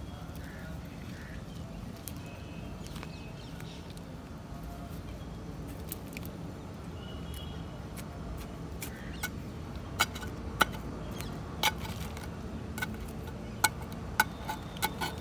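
A small hand tool digging and scraping in bonsai potting soil beside the trunk, with a run of sharp clicks and taps starting about two-thirds of the way through. A steady low hum lies underneath.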